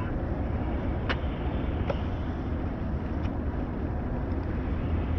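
Steady low rumble and road noise of a vehicle driving, with a couple of faint ticks about one and two seconds in.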